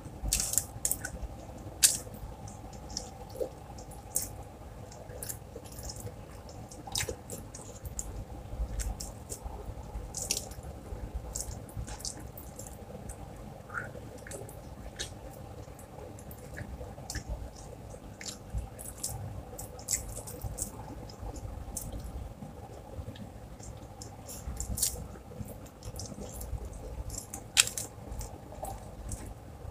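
Close-up wet eating sounds of someone eating rice and fried fish by hand: irregular lip smacks and chewing clicks, with a faint steady hum underneath.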